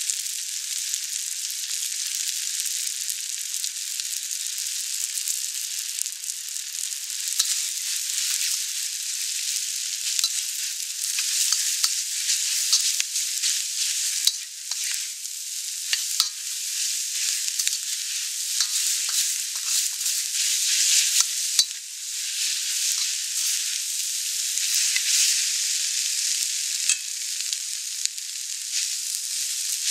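Vegetables and glass noodles sizzling in a hot wok, a steady high hiss, with frequent scrapes and clacks of a utensil stirring and tossing them, busiest from several seconds in.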